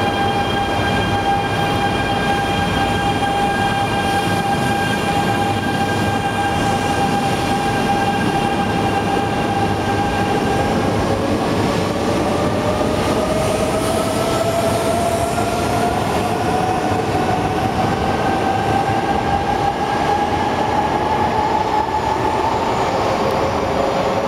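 Coupled Hayate–Komachi Tohoku Shinkansen train departing. A steady high electrical whine with overtones is heard while it stands. From about ten seconds in, a whine rises steadily in pitch as the train pulls away and accelerates, over a constant rumble.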